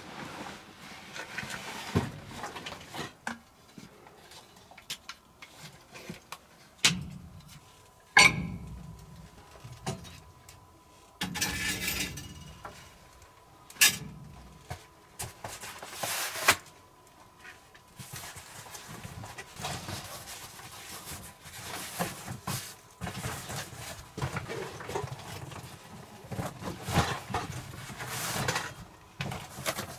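A backpack and camping gear being set down and handled on a wooden floor: rustling of fabric and straps with scattered knocks and clunks. A sharp knock about eight seconds in is the loudest.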